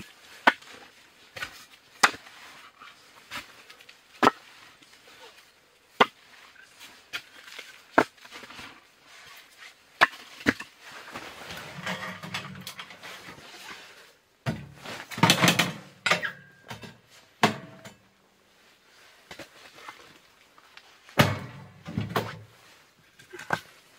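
Irregular sharp wooden knocks as pieces of split firewood are handled and set down, then a denser clatter about two-thirds of the way in and again near the end as wood is loaded into a small steel tent stove and its door is worked.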